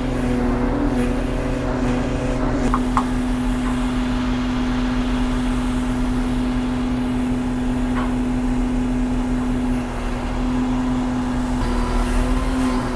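Diesel engine of heavy construction machinery running steadily at constant speed, with a couple of brief high-pitched sounds about three and eight seconds in.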